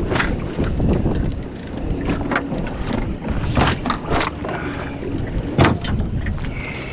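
Wind rumbling on the microphone aboard a small fishing boat, with several short sharp knocks and clatters scattered through it.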